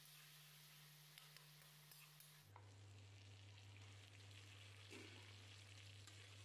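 Faint sizzle of pork and potato pieces frying in oil in a steel kadai, over a steady low hum that drops in pitch about two and a half seconds in, with a few light clicks.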